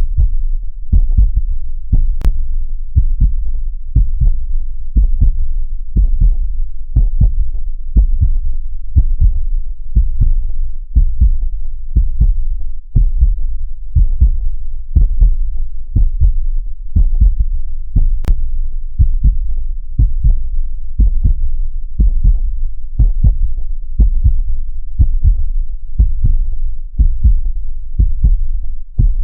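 Heartbeat sound: a steady, even rhythm of deep lub-dub double thumps.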